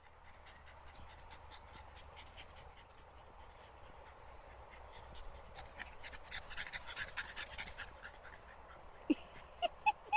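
A dog panting rapidly, the fast breaths growing louder as it comes close, then a few short, sharp sounds near the end.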